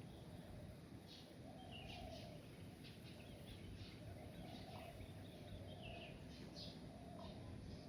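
Faint birdsong outdoors: frequent short high chirps from small birds and a lower short call that repeats every second or two, over a low steady background hum.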